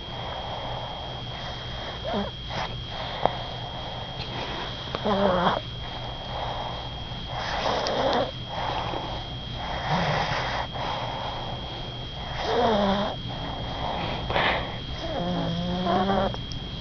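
A dog snoring in its sleep: a noisy breath about every two to three seconds, several of them carrying a falling, whistling tone.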